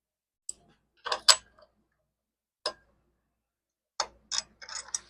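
A scattered handful of sharp metallic clicks and clinks from a new miter saw blade and its washer being handled and set in place on the saw's arbor.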